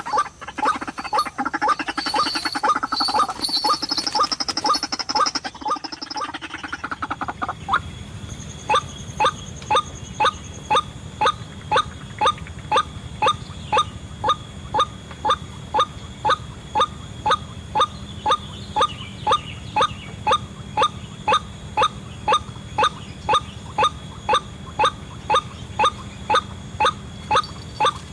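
White-breasted waterhen calls: a jumble of loud calls for the first several seconds, then from about eight seconds in a steady run of short, sharp, identical calls about two a second.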